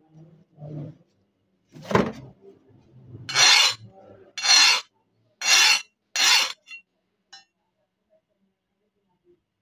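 A metal tool scraped four times across the flat of a rusty steel cleaver blade, each stroke a rasping scrape of about half a second. A single sharp knock comes about two seconds in, and two faint ticks follow the scrapes.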